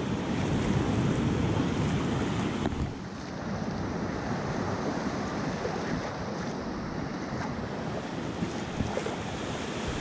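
Ocean surf washing up a beach, foamy swash rushing in around a microphone at water level, with wind buffeting the microphone. The rush is loudest for the first three seconds and then eases a little.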